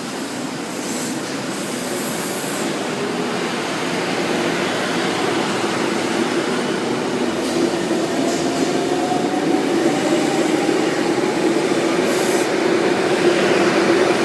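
Sydney Trains K-set double-deck electric train departing the platform and pulling past, growing steadily louder. A traction-motor whine rises slowly in pitch as it gathers speed, with a few brief high wheel squeaks.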